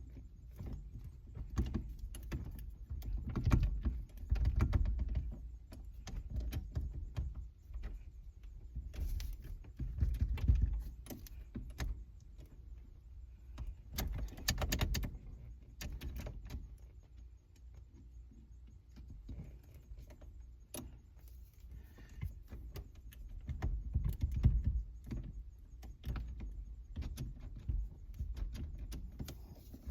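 Irregular metallic clicks, scrapes and rattles of a screwdriver working at a steering column to pry out the old ignition lock, with several heavier bumps and knocks along the way.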